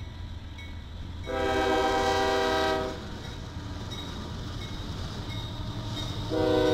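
Locomotive air horn sounding a long blast of about a second and a half, then a second blast starting near the end, over the steady low rumble of a passing train.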